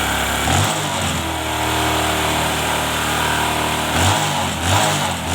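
Vehicle engine idling evenly, with no rattle, while the tensioner whose spring has failed is held tight; its note shifts about half a second in and again around four seconds.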